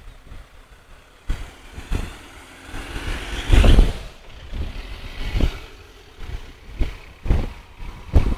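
Road traffic going by, with one vehicle passing close and loudest about three and a half seconds in, over irregular low rumbling thumps.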